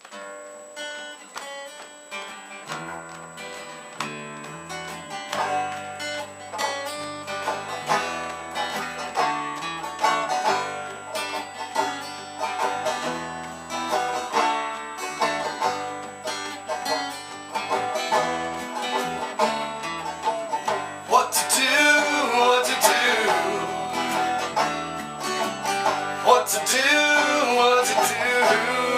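Country or bluegrass-style music with plucked banjo and guitar over a bass line; a singing voice comes in about two-thirds of the way through.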